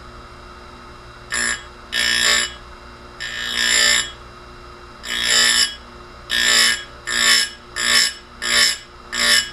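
Tecomec Jolly Evo chain grinder's abrasive wheel grinding saw-chain teeth in about nine short, high-pitched bursts as it is dipped in and out to clean the gullets. The dips come faster and shorter toward the end. The grinder's motor hums steadily between the bursts.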